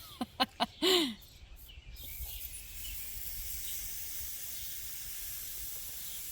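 A campfire hissing steadily, the high hiss starting suddenly about two seconds in, after a few short rising-and-falling squeaky calls at the start.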